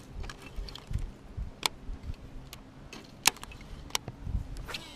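A Shimano Scorpion DC baitcasting reel gives a few sharp clicks as it is handled and cast. At the very end its digital-control (DC) brake starts its electronic whine as line pays out.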